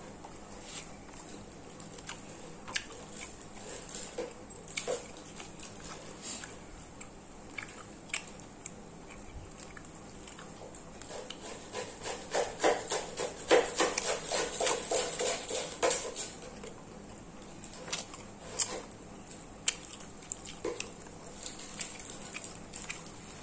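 Someone eating close to the microphone: chewing and mouth sounds with scattered sharp clicks, and a dense run of rapid clicks lasting about four seconds a little past halfway.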